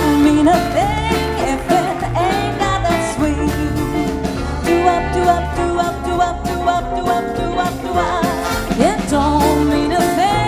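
Big band playing a swing number live, horns to the fore over piano and drums, with a few rising slides in the brass.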